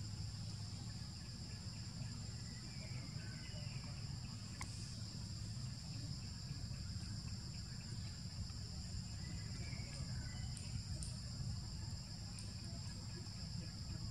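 Insects droning steadily on a high pitch, over a constant low rumble, with a few faint short chirps and a single click a little before the middle.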